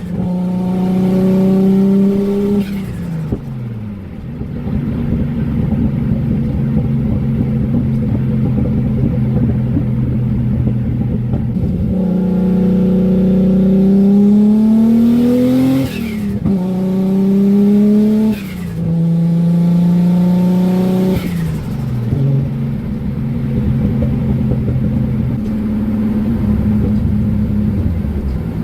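Stock RB26 twin-cam inline-six with a single turbo and no muffler, pulling under load at light, partial throttle: revs hold or climb, then fall away sharply several times, with a short burst of turbo flutter as the throttle shuts. The pitch falls about three seconds in, climbs steadily around the middle, then drops three times a few seconds apart.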